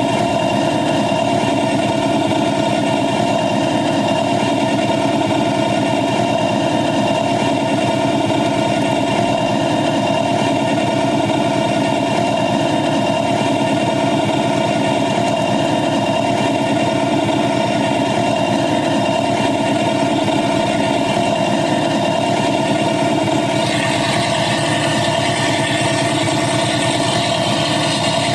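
Ride-on 7½-inch gauge miniature train running steadily along its track, with an even motor drone throughout. Near the end a higher hiss joins in.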